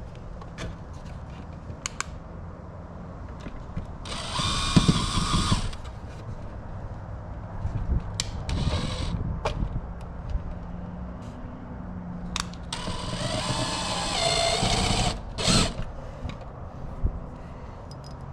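Power drill running in short bursts with a motor whine, three times, the last one the longest, driving screws to mount the controller's plate, with small knocks and clicks between the bursts.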